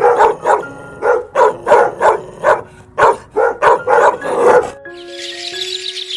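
Dog barking repeatedly, about a dozen loud barks in quick succession, then near the end a horse begins to whinny. Soft background music plays throughout.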